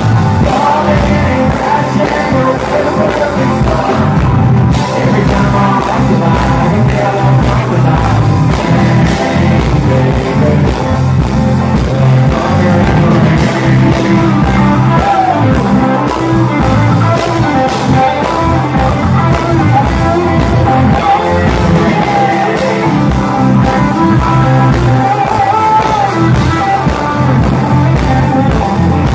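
Live country band playing loud and steady: a male lead singer over acoustic and electric guitars, bass guitar and drums, heard through the venue's PA.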